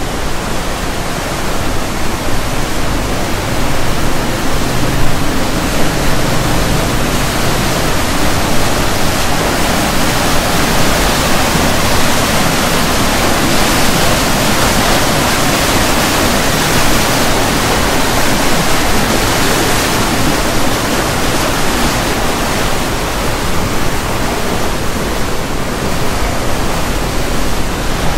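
Water gushing and churning from a drainage pumping station's outflow, a loud, steady rush that swells toward the middle and eases off near the end.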